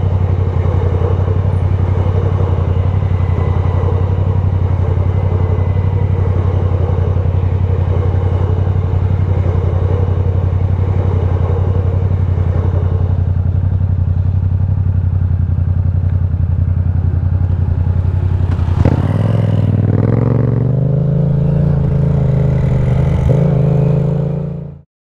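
2018 Yamaha MT-07's parallel-twin engine with an Akrapovic titanium exhaust, running at steady revs. About 19 seconds in there is a click, the note dips, then climbs higher as the revs rise. The sound cuts off suddenly near the end.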